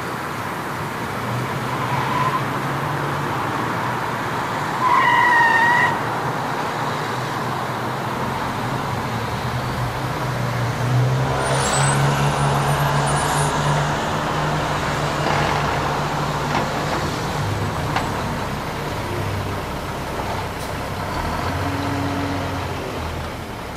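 Street traffic around a car stopped in traffic, with a car engine running low and steady. A brief horn toot about two seconds in, then a louder horn blast of about a second.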